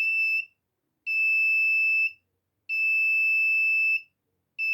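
Buzzer of a homemade laser-and-light-sensor alarm circuit sounding a steady high-pitched tone in on-off stretches of about a second, set off because the laser beam to the light-dependent resistor is broken.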